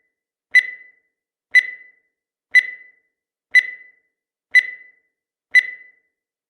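Countdown timer sound effect: a short electronic beep once a second, each starting sharply and fading quickly, six beeps in a steady rhythm.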